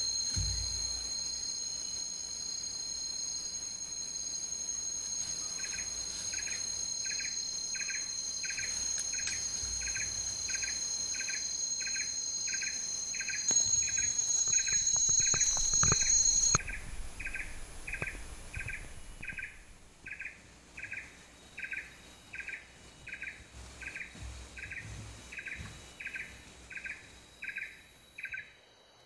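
Forest insects: a steady high-pitched drone on two pitches that cuts off suddenly about halfway through, and a regular chirp repeating about one and a half times a second. In the middle come louder knocks and rustling in dry leaf litter.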